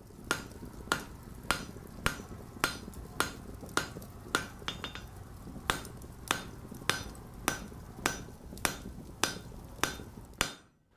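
Hammer striking an anvil in an even rhythm, a bit under two blows a second, each blow ringing briefly. A steady low rumble runs underneath and stops near the end while the hammering goes on.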